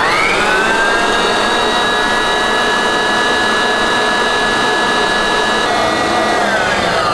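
Electric stand mixer whisking egg whites with a wire whisk, beating them into a French meringue. The motor whine rises as it is turned up to speed, runs steady, and starts to slide down in pitch near the end.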